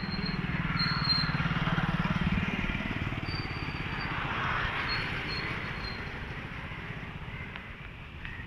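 A motorcycle engine running close by, getting louder over the first two seconds and then fading away, over a steady haze of street traffic noise.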